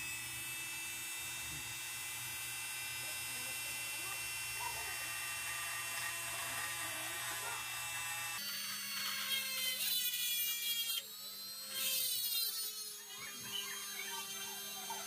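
Handheld electric rotary tool running with a steady high whine, its bit drilling into a pool ball. About eight seconds in the motor's pitch changes abruptly, and rough grinding bursts follow as the bit bites into the ball.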